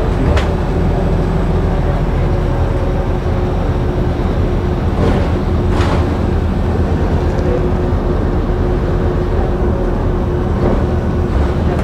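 Interior of a moving city bus: a steady low rumble of engine and road with a constant hum, and a few brief rattles or knocks from the cabin.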